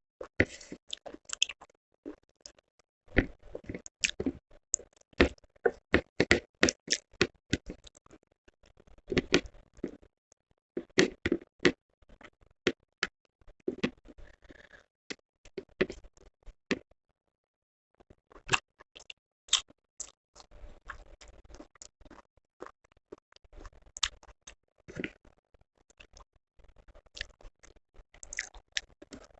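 Close-miked eating sounds: a person chewing food with irregular wet clicks, smacks and crunchy crackles. The sounds stop for about a second a little past halfway.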